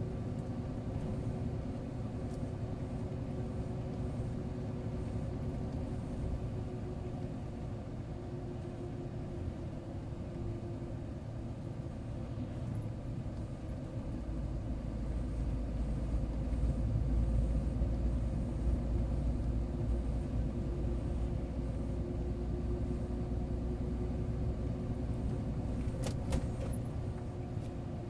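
Inside a heavy truck's cab while it cruises along a highway: the engine runs steadily under tyre and road rumble, with a steady hum. The low rumble grows louder about halfway through, and there is a sharp click near the end.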